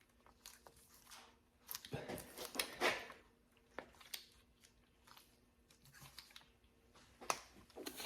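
Metal parts being handled by hand on an FA20 engine's timing chain tensioner as it is pushed down to be pinned: scattered small clicks, with a louder stretch of scraping and rattling about two seconds in.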